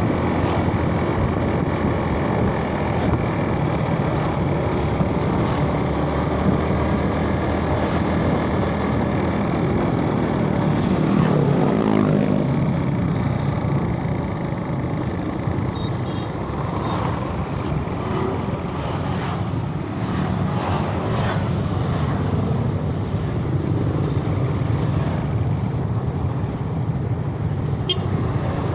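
Suzuki Smash underbone motorbike's single-cylinder four-stroke engine running while riding along a street, with wind and road traffic around it. A little before halfway the engine note rises and falls, then the ride goes on a little quieter.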